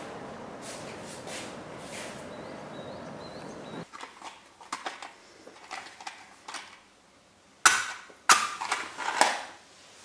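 A steady background hiss that cuts off about four seconds in, then a few small clicks and rustles of handling a matchbox, then a wooden match struck twice against the box, sharp and loud, catching alight on the second strike with a short crackle.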